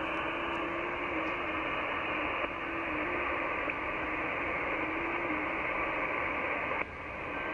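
HF receiver audio on the 20 m band: steady band hiss and static, with a faint FT8 digital signal warbling through it as a tone stepping up and down in pitch. A click and a brief dip in the hiss come near the end.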